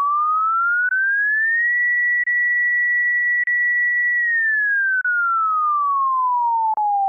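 Synthesized pure sine tone that glides up, holds steady at a high pitch, then glides slowly down. It is cut by about half a dozen very short gaps, each with a faint click. This is the bare test tone of an illusory-continuity demonstration: the breaks that were masked by noise bursts, where most listeners heard the tone as continuous.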